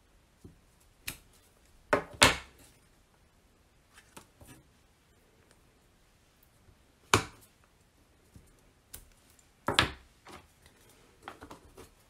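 Clear acrylic stamp block knocking as an inked stamp is tapped on an ink pad and pressed onto cardstock on a table: a series of sharp knocks, the loudest about two seconds in and again around seven and ten seconds, with lighter taps between.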